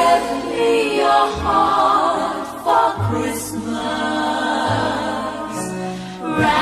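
Christmas music with a choir singing slow, held harmonies over changing bass notes.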